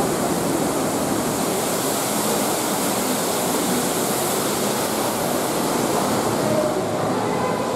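Steady rushing of falling water, with faint voices in the background.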